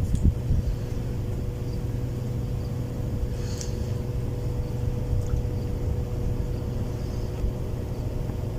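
Steady low mechanical rumble with a faint constant hum, unchanging throughout, and a few faint ticks.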